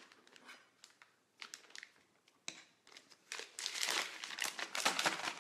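Plastic piping bag filled with buttercream crinkling as it is handled. A few scattered soft ticks come first, then dense, louder crinkling starts about three seconds in as the bag is gathered in both hands and the cream is pushed down.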